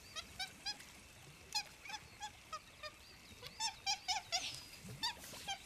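Monkeys giving short, squeaky chirping calls again and again, some in quick runs of two or three.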